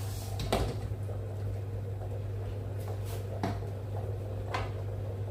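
A few short knocks and clatters of kitchen things being handled, over a steady low hum.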